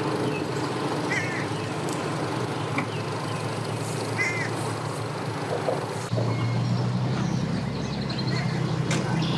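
Vehicle engines running with a low steady hum, which gets louder about six seconds in; a few short bird calls sound over it.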